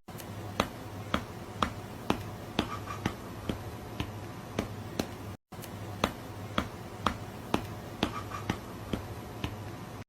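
Sharp clicks or snaps, about two a second and some in quick pairs, over a low steady hum; the same few-second sequence plays twice with a short break between.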